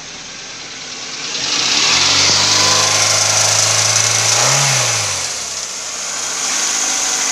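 Hyundai Getz 1.4-litre DOHC 16-valve four-cylinder engine running at raised revs, with a quick rev that rises and falls about four and a half seconds in before the engine note drops back. A loud steady hiss of engine noise runs underneath; the seller rates this engine as tested good.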